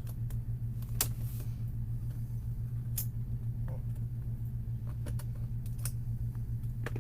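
Scattered sharp plastic clicks, about five of them, as a laptop's plastic screen bezel is pried and worked loose from its clips and adhesive film, over a steady low hum.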